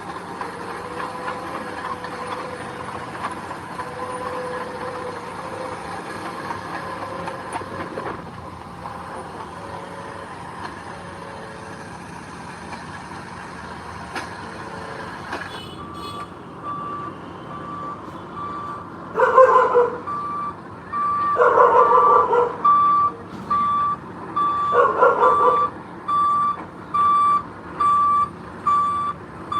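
Heavy earthmoving machinery's diesel engine running steadily; about halfway through a reversing alarm starts, beeping about once a second. Three louder drawn-out tones sound over the beeping, each lasting about a second.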